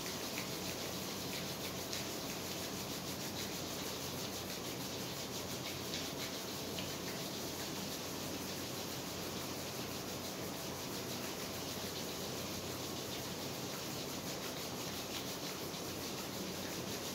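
Palms rubbed together in a steady, continuous dry rub, warming up the hands.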